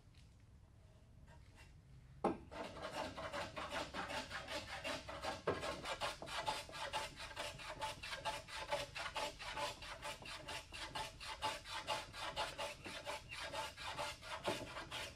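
Rapid back-and-forth rubbing strokes of a hand tool on a cypress tenon, several strokes a second, starting with a knock a couple of seconds in and running on steadily, with an occasional knock.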